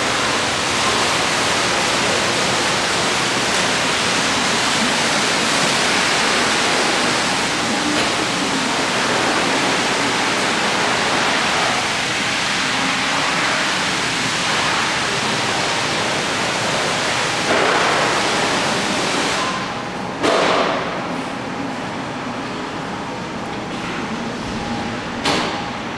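A loud, steady hiss of broad noise with no clear pitch. About twenty seconds in it loses its highest part and gets a little quieter. Two short knocks come near the end.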